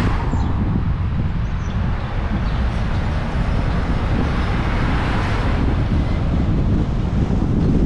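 Wind buffeting a roof-mounted camera's microphone on a moving car, a loud, steady low rumble mixed with road and traffic noise. A hiss swells and fades twice, at the start and about five seconds in.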